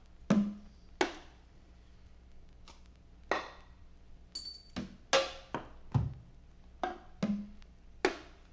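Sparse, irregular percussion strikes, about a dozen, unevenly spaced. A few carry a short low ring like a tom, and one about five seconds in has a long bright splash like a cymbal.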